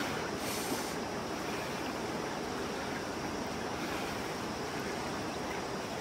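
Steady rushing of flowing river water, an even noise that does not change.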